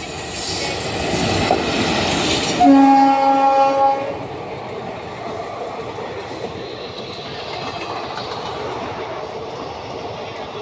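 Passing train: a rushing noise builds up, then a single horn blast of about a second and a half, the loudest sound, starts a little under three seconds in. After it, the steady rattle of the wagons on the rails carries on.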